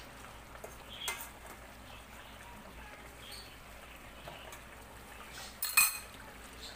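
A metal spoon knocking against a stainless steel pot as pieces of fish in coconut milk are turned over, with a few light clicks. Near the end comes a sharp, ringing clink of metal cutlery set down on a ceramic plate, the loudest sound.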